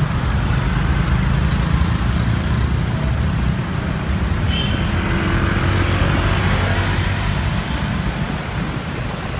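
Motorcycle ride in city traffic: a steady low rumble of engines and road noise.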